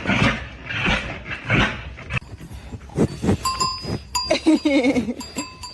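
An animal making short rhythmic huffing sounds for about two seconds. After a cut, a bell rings over and over and a goat gives one wavering bleat about halfway through.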